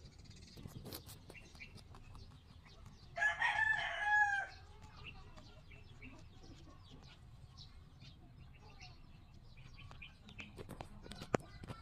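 A rooster crows once about three seconds in, a loud call lasting about a second and a half. Around it are faint, scattered clicks of rabbits chewing watermelon, with one sharper click near the end.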